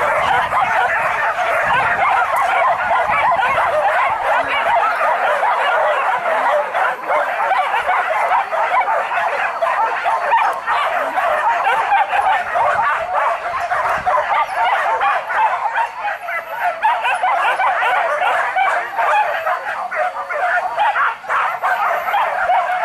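A pack of hunting dogs yelping and barking without a break, many voices overlapping, as they give chase to a wild boar.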